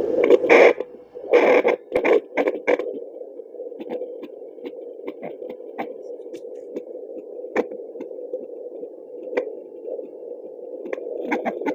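Handheld Yunos fetal Doppler's speaker giving a steady hiss, with loud scratchy crackles for the first few seconds as the probe slides over the gel on the belly, then scattered faint clicks.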